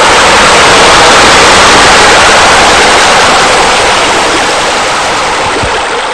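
Loud, steady rushing noise with no pitch or rhythm in it, fading gradually over the last couple of seconds.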